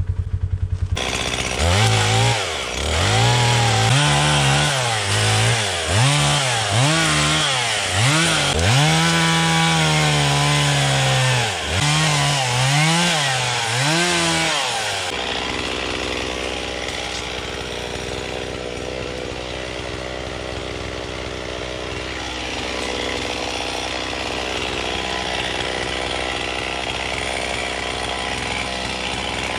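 A gas chainsaw revving up and down repeatedly as it starts cutting up a white cedar tree, then running more steadily for the second half as it cuts through the wood.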